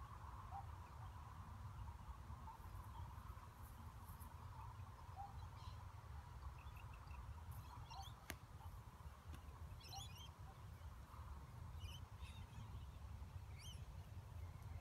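Quiet outdoor ambience: a low steady rumble with faint birds chirping now and then in short high bursts, and a single sharp click about eight seconds in.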